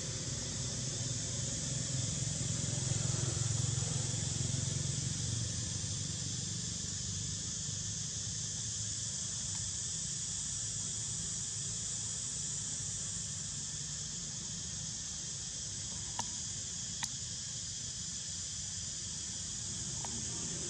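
Steady outdoor background: an even high hiss throughout, with a low rumble during the first several seconds and two faint clicks about three-quarters of the way in.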